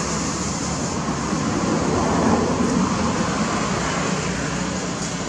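Steady rushing background noise, a little louder in the middle.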